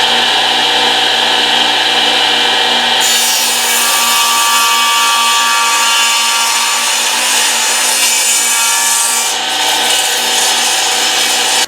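Table saw running and cutting wood, a steady motor whine with the blade's cutting noise, growing harsher about three seconds in. The shop-vac dust collection is switched off, so only the saw is heard.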